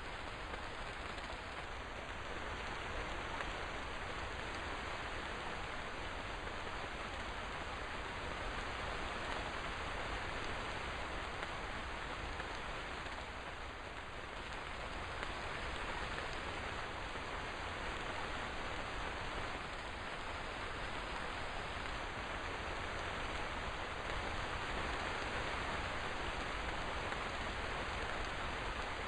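Steady rain falling, an even hiss of drops without distinct individual impacts.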